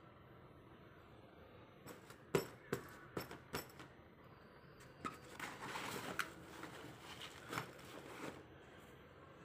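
A red fabric duffel bag being handled: a few sharp clicks and knocks about two seconds in, then fabric rustling and scraping for about three seconds.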